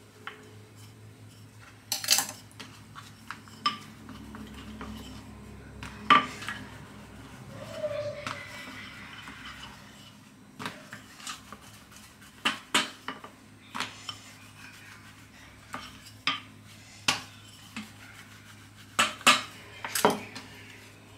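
Wooden rolling pin flattening dough on a wooden cutting board: irregular sharp knocks and taps as the pin and board shift, loudest around two, six and nineteen to twenty seconds in.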